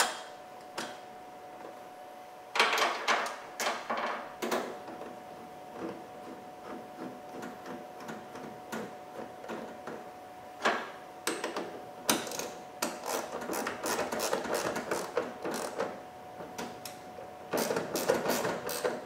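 Irregular clicks, knocks and rattles of hands working the plastic and metal parts of a car's headlight and parking light assembly and the surrounding fender area. There is a cluster of sharp clicks a few seconds in and a denser run of rattling in the second half, over a faint steady hum.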